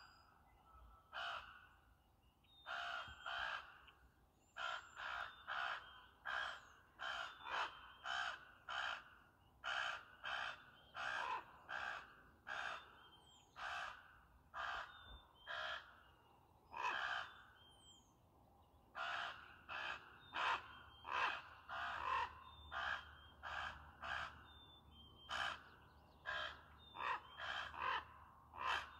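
A raven calling over and over: short calls, one or two a second and sometimes in quick pairs, with a brief pause just past halfway. The owner takes this calling for the raven summoning the rest of its family to an egg that has been put out.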